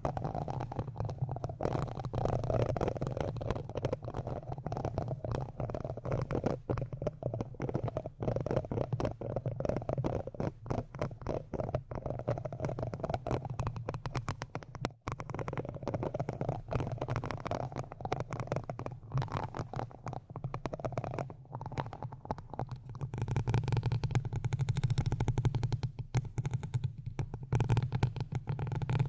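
Close-up ASMR rubbing and scratching right against the microphone: a continuous dense crackle with a deep rumble, swelling louder for a few seconds near the end.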